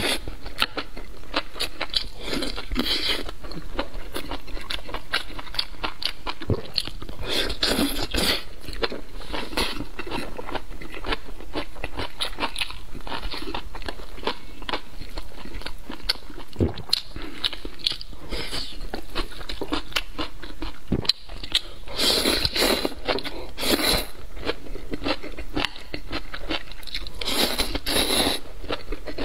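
Close-miked eating of spicy hot pot noodles: steady wet chewing with dense small clicks of the mouth, broken by louder noodle slurps several times, including at the start and near the end.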